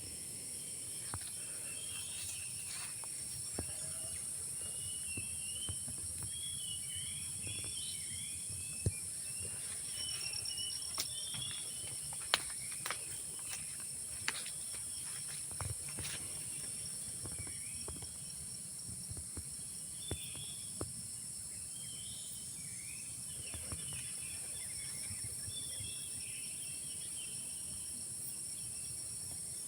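Forest ambience: a steady, high-pitched insect drone with many short bird chirps scattered through it and a few faint clicks.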